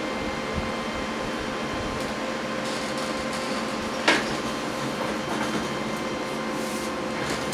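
Steady background hum and hiss of a small room, as from an air conditioner or fan running, with faint steady whining tones in it. One short knock about four seconds in.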